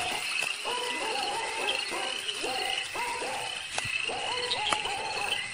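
A chorus of frogs calling: many short hooting croaks overlapping, several a second, over a steady high-pitched chirring.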